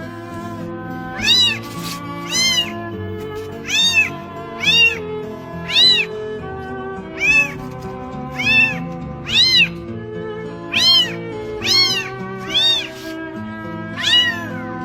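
Newborn kitten crying with high-pitched meows, about a dozen short calls that each rise and fall in pitch, roughly one a second, over background music.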